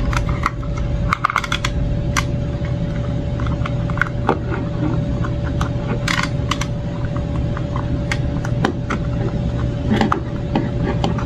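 Hard plastic clicks and light rattles from a cupholder phone car mount being handled, its cradle head and ball joint turned and adjusted, over a steady low hum.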